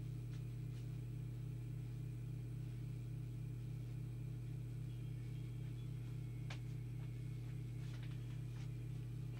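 Steady electrical mains hum, strongest low down with a ladder of evenly spaced overtones, running unchanged; a few faint light clicks over it.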